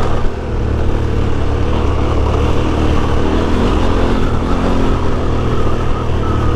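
KTM 1290 Super Adventure S's V-twin engine running steadily while riding an off-road track, a constant low rumble.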